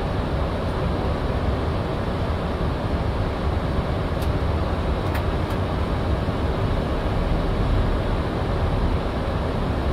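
Steady cockpit noise of a Boeing 737-800 in flight: a low rumble of airflow and engines heard on the flight deck, with a few faint clicks about four and five seconds in.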